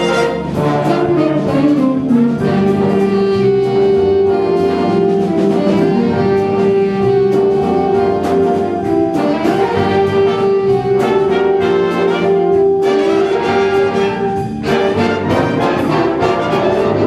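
A big band playing swing live, with saxophones, trombones and trumpets; a note is held for about twelve seconds through the middle.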